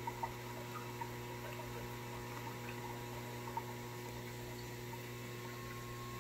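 Steady low electrical hum, with a few faint ticks of water.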